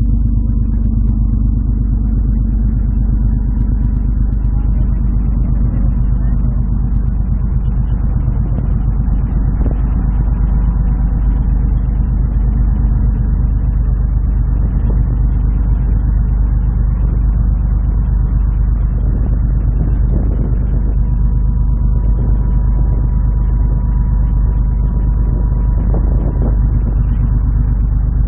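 Steady low drone of a large ferry's engines, heard on the open deck.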